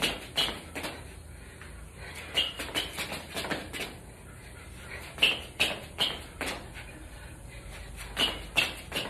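Sneakers of two people exercising, stepping and landing on a concrete floor: clusters of sharp taps a few seconds apart.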